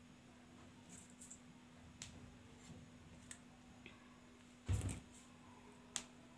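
Knife cutting and trimming a fresh aloe vera leaf on a plastic-covered table: scattered small clicks and taps, a louder dull thump a little under five seconds in and a sharp click at about six seconds. A steady low hum runs underneath.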